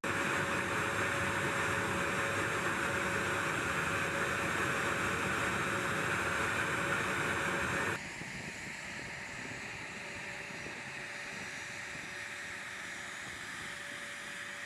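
Aircraft engine running steadily, a noisy rush with a faint steady tone; it cuts abruptly about eight seconds in to a quieter stretch of similar engine noise.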